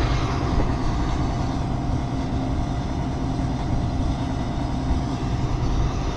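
Combine harvester running steadily, a low, even engine and machinery drone.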